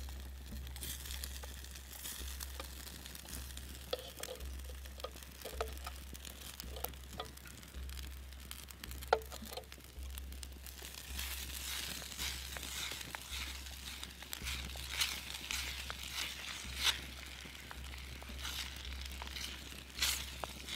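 Eggs and rice noodles sizzling in a steel frying pan over a campfire, with scattered sharp pops and crackles. The sizzle grows louder about halfway through, and the noodles are stirred with a wooden spoon near the end.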